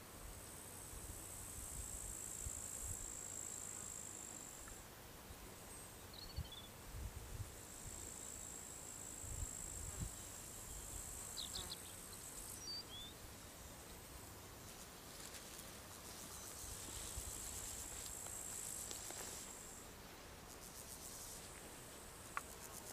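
Crickets trilling: a steady high-pitched trill that stops and starts several times, with a few short faint chirps and some low bumps in the middle.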